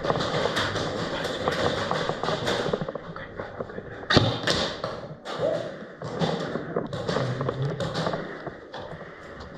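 Thuds, taps and rustling from a player moving in airsoft gear, with one sharp knock about four seconds in.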